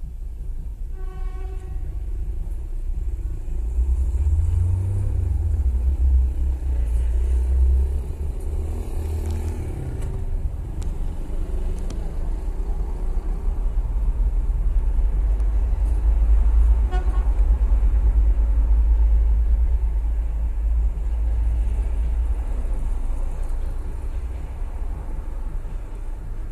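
TEP70 diesel passenger locomotive approaching and passing with an express train: a heavy, steady low rumble from the engine and the rolling train, with a short horn toot about a second in.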